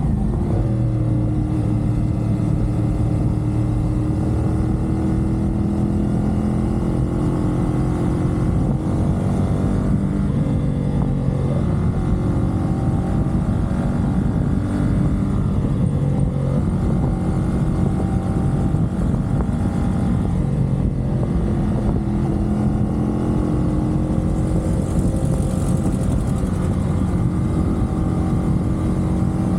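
CFMoto 450SR parallel-twin sport bike engine running at expressway speed, its pitch drifting a little up and down as the throttle changes, over a steady low rush of wind noise.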